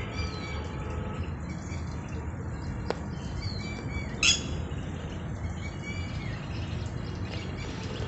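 Red-wattled lapwing calling: one short, loud, high call about four seconds in, with a few fainter calls around it, over a steady low background noise.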